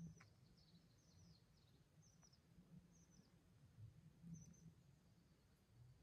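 Near silence with faint high chirps: a string of short, quickly falling notes repeated through the first four and a half seconds, over a faint low rumble that swells now and then.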